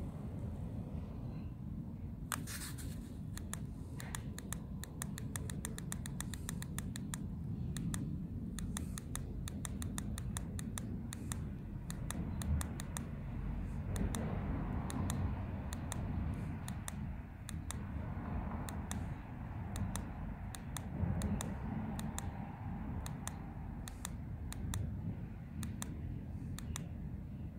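Quick, irregular clicks of the buttons on an S830 e-bike LCD display's handlebar control pad, pressed over and over to step through its settings; the clicks come thick and fast for the first several seconds, then more sparsely, over a steady low rumble.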